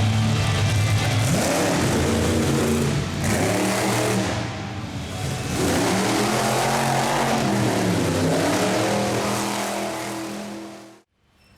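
Engine running and being revved repeatedly, its pitch rising and falling several times, then cut off suddenly near the end.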